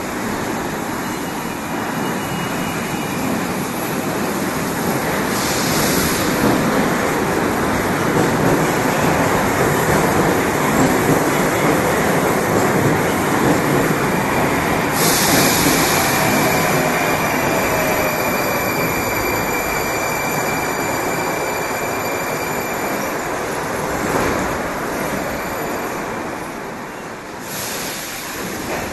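Moscow Metro 81-765/766/767 "Moskva" train running through the tunnel: a steady, loud rumble of wheels on rail. About halfway through, high steady tones join it and a fainter whine climbs in pitch for several seconds.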